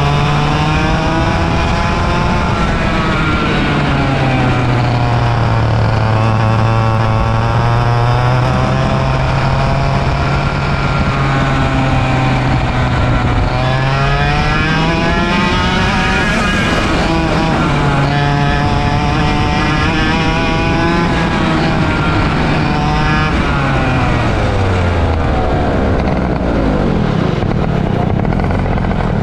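A 100cc two-stroke kart engine heard from onboard, revving up and dropping back several times as the kart accelerates and brakes, then winding down to a lower pitch in the last few seconds as the kart slows.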